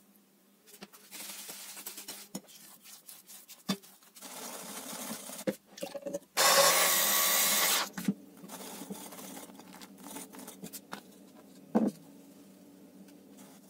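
Baking-prep handling sounds: eggs beaten in a ceramic bowl, then a loud rushing noise of about a second and a half midway as something is poured into a glass, with a few sharp knocks of utensils and dishes.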